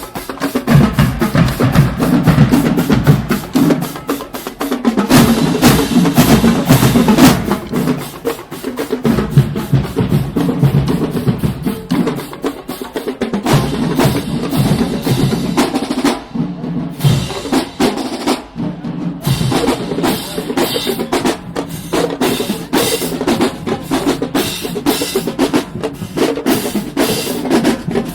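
Marching band drumline playing a fast cadence of snare and bass drums, with two short breaks in the rhythm past the middle.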